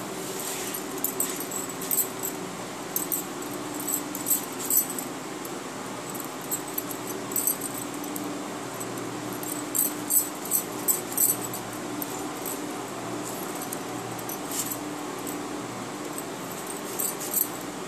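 Vegetables being sliced and peeled on an upright floor-mounted cutting blade (bonti), with clusters of crisp clicks as the blade cuts and glass bangles knock together, over a faint steady hum.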